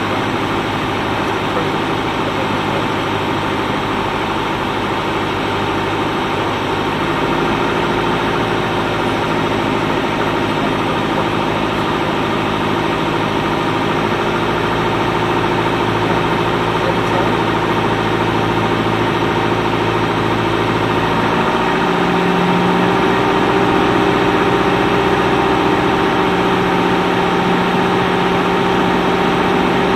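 Single-engine light aircraft's piston engine and propeller droning steadily, heard inside the cockpit. The engine note changes about seven seconds in and again a little past twenty seconds, growing slightly louder.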